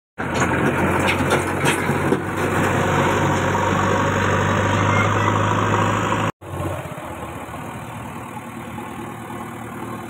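JCB 3DX backhoe loader's diesel engine running steadily. It is loud with a few clicks at first, cuts out briefly about six seconds in, then carries on more quietly.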